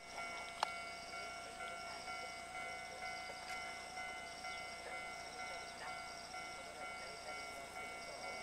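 Railway level-crossing alarm ringing steadily at about two strokes a second, with cicadas buzzing high behind it. A single sharp click comes just under a second in.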